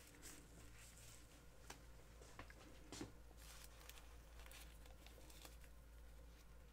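Near silence: room tone with a faint steady low hum and a few faint, short clicks, the clearest about two and three seconds in.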